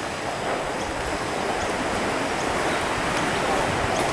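Steady rushing noise of wind buffeting the microphone, rumbling low down.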